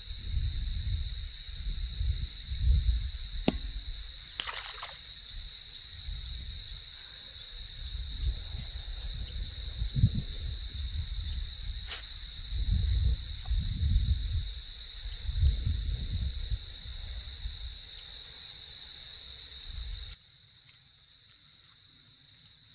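Steady high-pitched chorus of insects, with repeated bursts of low rumble and a few sharp clicks. Everything cuts off suddenly near the end.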